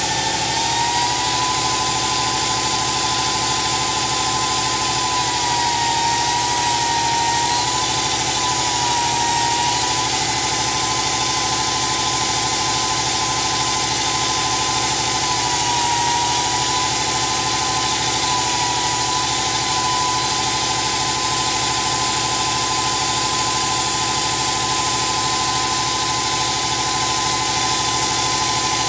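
High-speed grinder on a press repair robot's arm running on a steel plate, a steady whine over a broad hiss. The whine's pitch sags slightly twice and recovers.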